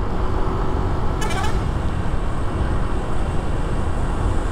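Bus engine and road noise heard from inside the moving bus's cabin, a steady low rumble. A short high-pitched sound drops in pitch about a second in.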